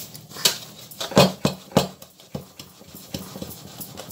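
Large stainless-steel pot being handled and shifted on a stone countertop: a run of sharp knocks and scrapes, the loudest about a second in.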